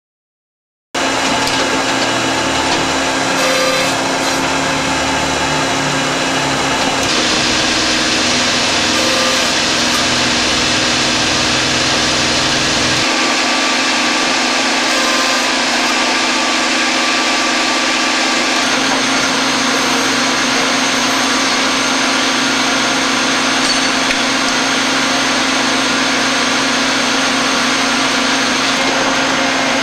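Hydromat EPIC R/T 32/45-16 CNC rotary transfer machine running, its tool spindles cutting brass valve parts under coolant: a loud, steady mechanical whir and hum starting about a second in. Its tone shifts abruptly a few times.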